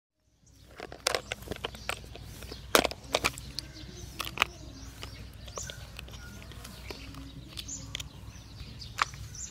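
Pond-side outdoor ambience: birds chirping over a steady low background noise, with sharp clicks and knocks scattered through, the loudest a little under three seconds in.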